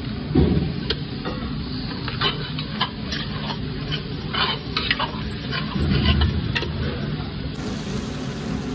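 Spatula stirring raw boneless mutton into hot masala in a metal pot: repeated scrapes and clacks against the pot over a sizzle. Heavier bumps come about half a second in and again around six seconds.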